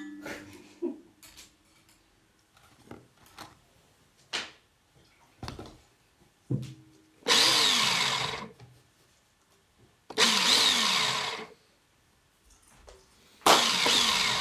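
Noise improvisation: three harsh whirring bursts of about a second and a half each, with sweeps falling in pitch inside them, and scattered clicks and knocks between.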